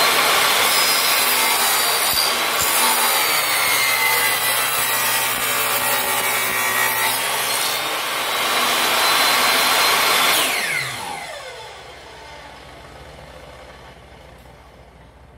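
Table saw running and cutting a bevel along wooden picture-frame stock, its blade tilted to 15 degrees. About ten and a half seconds in, the saw is switched off and the motor winds down with a falling whine.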